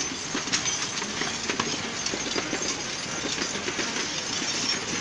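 Teams of horses drawing artillery field guns and limbers past: a steady, dense clatter of hooves and rattling carriage wheels.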